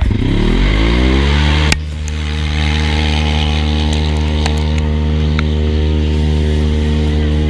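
Polaris RZR side-by-side's engine revving up as it pulls away with the weight sled, then held at steady high revs under load. A few sharp ticks sound over the engine.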